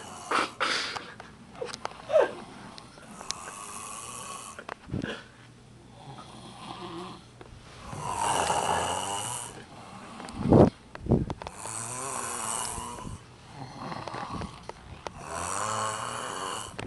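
A sleeping person snoring. There are long drawn-out snoring breaths about every four seconds, with short, sharp snorts in between. The loudest snort comes about ten and a half seconds in.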